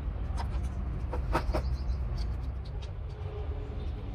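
Light metallic clicks and taps as hydraulic pump parts are handled, over a steady low rumble.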